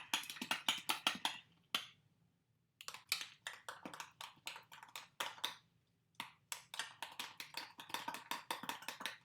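Overripe bananas being mashed and stirred in a bowl: quick, irregular clicks and taps, several a second, with two brief pauses.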